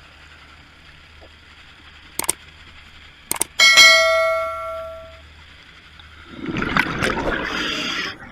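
A metallic clang about three and a half seconds in, ringing with several bell-like tones that die away over about a second and a half, after two faint clicks. Near the end comes a noisy rush lasting under two seconds.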